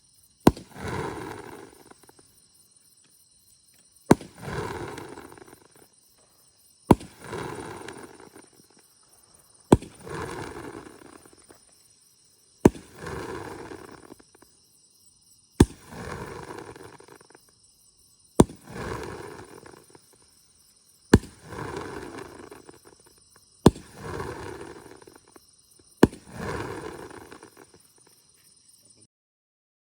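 A 1.25-inch, 10-shot repeater firework cake (Mr. Big Double Decker) firing ten shots one by one, about every three seconds. Each shot is a sharp report followed by a hissing, crackling burst lasting about a second and a half.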